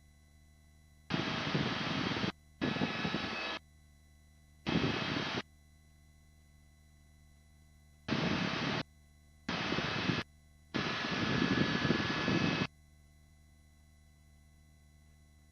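Helicopter cabin noise from engine and rotor comes through the intercom in six short bursts. Each burst cuts in and out abruptly as the microphone opens and closes. Between them there is only a low steady intercom hum.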